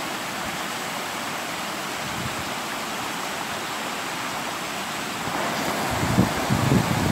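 Steady rush of river water pouring over a low weir. Near the end, gusty low buffeting of wind on the microphone joins it.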